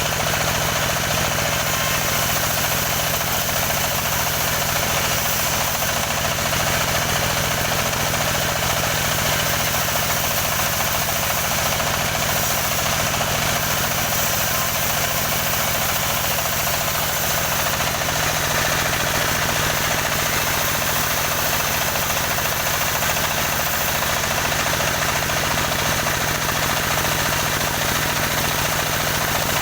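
Engine of a wood-sawing machine running steadily at an even, unchanging speed.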